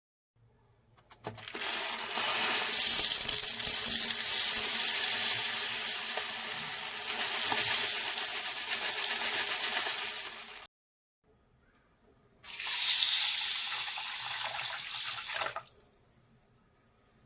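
Water running from a tap into a vessel in two long stretches, each cut off suddenly.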